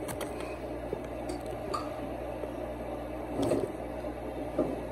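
A low, steady hum, with a few faint clicks and a soft knock about three and a half seconds in.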